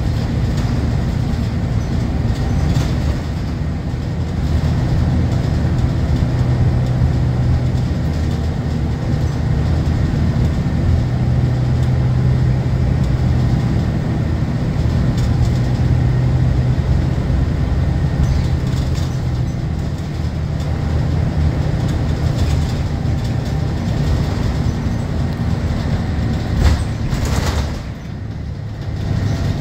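Scania K230UB city bus's rear-mounted nine-litre five-cylinder diesel, heard from inside the passenger saloon, pulling along at road speed with a steady low hum. The engine note changes about two-thirds of the way through, and near the end there is a single knock before the engine briefly eases off.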